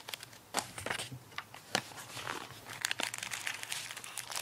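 Crinkling of thin protective wrap around phone accessories as hands pull them from a cardboard box, in irregular short rustles and clicks.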